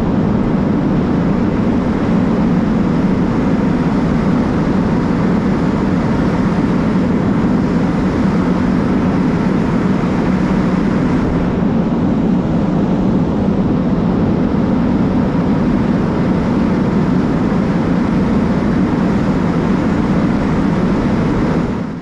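Fire ladder truck's diesel engine running steadily, a loud, even low drone that does not change.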